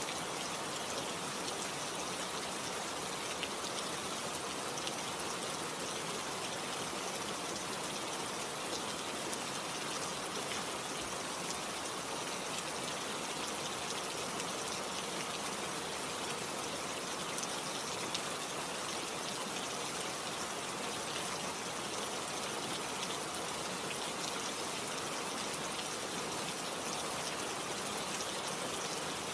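Steady rainfall, an even hiss of falling rain with scattered faint drop ticks, unchanging throughout.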